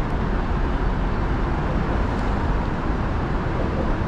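Steady rushing outdoor city noise with a deep rumble: street traffic and wind on an action camera's microphone.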